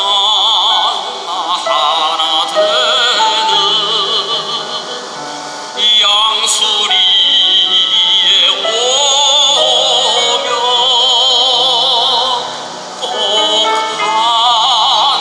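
Tenor singing a Korean art song in a full operatic voice with wide vibrato, accompanied by grand piano. He breaks briefly between phrases about six seconds in and again near thirteen seconds.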